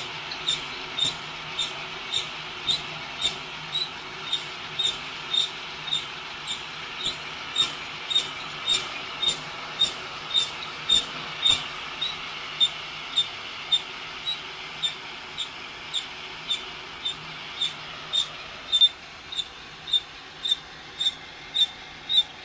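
Homemade drum coffee roaster running: a stainless flour sifter full of beans turned by a cordless right-angle drill, under a blowing heat gun. The drum gives a sharp squeak just under twice a second, once each turn, over a steady blowing noise and a low hum. The blowing noise drops a little near the end.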